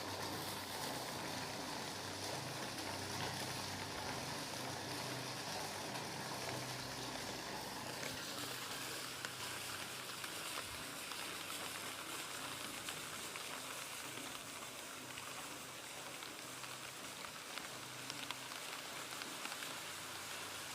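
Steady rain falling, a dense even hiss with many single drops ticking through it. About eight seconds in the hiss thins slightly and the separate drop impacts stand out more.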